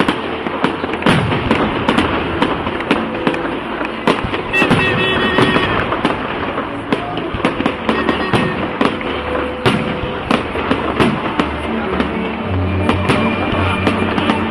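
Fireworks going off in a continuous barrage: a dense run of bangs and crackles, with music playing underneath, its bass more prominent near the end.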